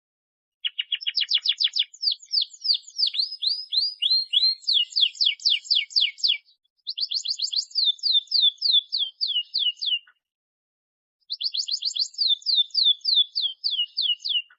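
Domestic canary singing vigorously in long rolling trills: rapid runs of repeated sweeping notes, several a second. It sings three phrases, with short pauses about six and ten seconds in.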